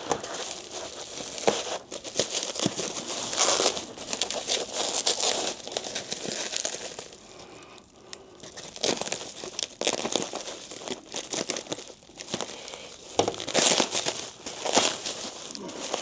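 A packaging bag being cut open and rummaged through, crinkling and tearing irregularly, with a short lull about halfway and another a little after twelve seconds.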